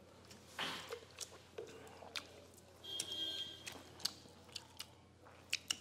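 Close-miked eating sounds: chewing with many small wet clicks and smacks as food is eaten by hand. A brief high-pitched tone comes about three seconds in.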